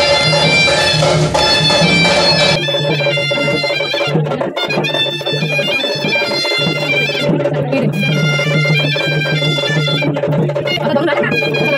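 Background music: a melody over a steady drone, with light percussion. A low rumble under it drops out about two and a half seconds in.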